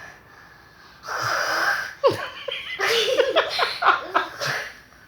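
A child imitating snoring with a long, breathy, rasping breath about a second in, then laughing in short broken bursts.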